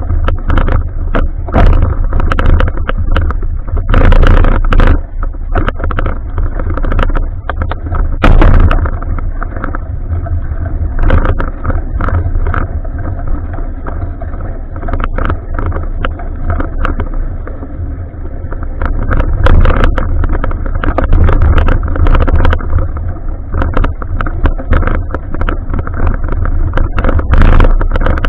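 Wind and road noise on an action camera carried on a moving bicycle: a loud, steady low rumble with frequent short knocks and rattles as the bike jolts along.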